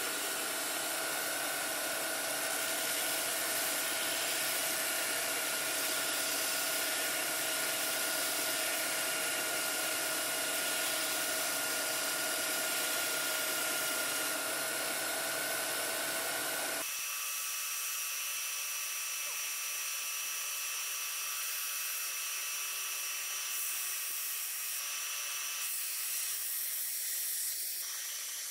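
Makita belt sander running steadily with a high whine, used to sharpen a blunt steel lawn mower blade. About 17 seconds in the sound changes abruptly, losing its low end, and runs on at a different pitch.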